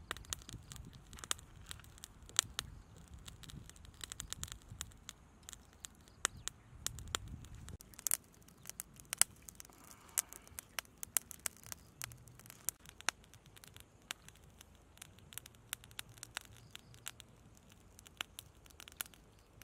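Small wood fire crackling with irregular sharp pops, mixed with the clicks and scrapes of small fish being threaded onto bamboo skewers.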